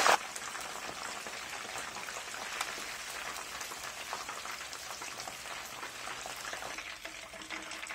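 Tilapia pieces coated in wheat flour and cornmeal deep-frying in hot oil, a steady crackling sizzle full of fine pops.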